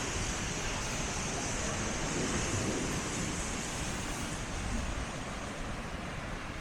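Sea waves washing onto the shore: a steady rush of surf that swells a little about two seconds in.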